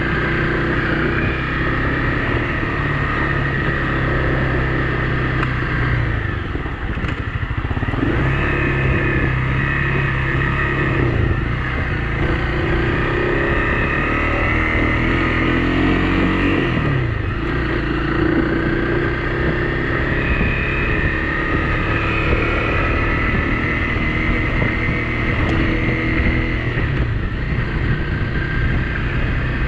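Honda CRF250L Rally's single-cylinder four-stroke engine running under way on a dirt trail. The engine note eases and picks up again about seven seconds in and once more a little past halfway.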